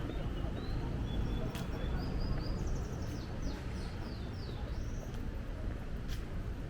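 A small bird singing a short phrase of high chirps that ends in a few quick falling notes, over a steady low outdoor rumble.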